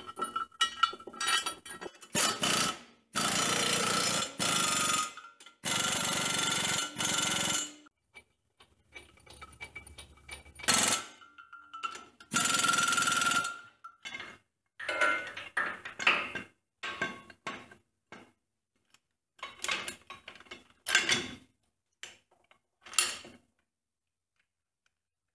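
Steel stabilizer brackets and bars being fitted to a tractor's three-point hitch: short clanks and rattles of metal parts, and a power tool running in three spells of a second or two, each sound starting and stopping abruptly.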